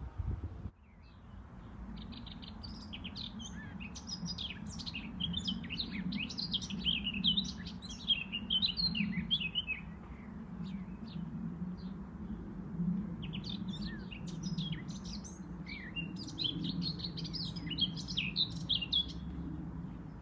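Small birds chirping and twittering in quick high runs, in two spells with a lull around the middle, over a steady low background hum.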